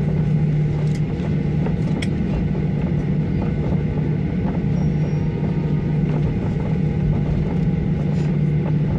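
Boeing 737-800's CFM56-7B engines at taxi idle, heard inside the cabin over the wing: a steady low hum and drone.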